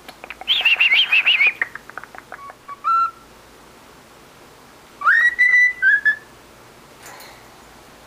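Cockatiel chattering in a warbling, wavering trill that breaks into a run of quick clicks, then a short note. About five seconds in comes a rising whistle held for about a second, followed by a shorter, slightly lower whistled note.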